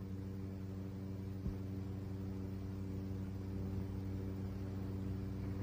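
Steady low electrical hum with hiss, the noise floor of an old television soundtrack, with one faint click about one and a half seconds in.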